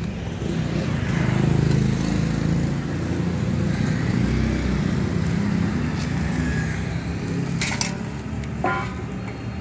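Low engine rumble of passing road traffic, loudest early on. Near the end come a couple of sharp clinks of a metal spatula against the frying pan.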